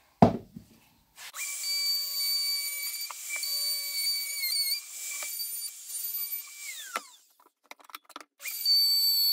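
Handheld electric plunge router cutting a rabbet along a pine board. After a thump at the start, the motor starts about a second in and runs with a steady high whine that wavers as the bit bites. It is switched off and winds down with a falling pitch around seven seconds, a few clicks follow, and it starts again near the end.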